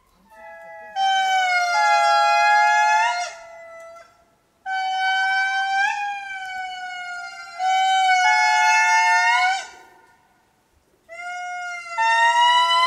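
Indri lemurs singing in chorus: loud, long-held wailing notes from two or more voices at once, each note sliding slightly and bending upward at its end. The song comes in three long phrases with short pauses between them.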